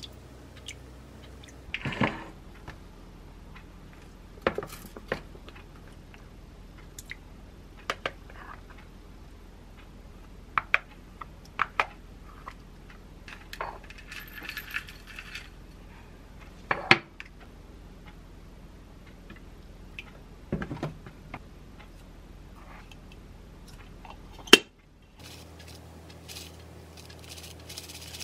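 Kitchen handling sounds: scattered clinks and taps of spoons and containers against a glass mixing bowl and the countertop. About halfway through comes a short rattle of dry yogurt topping being poured into a paper cup.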